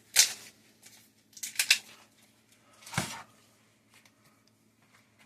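Plastic hot dog package being handled and opened: three short bursts of crinkling and rustling, with a soft knock about three seconds in.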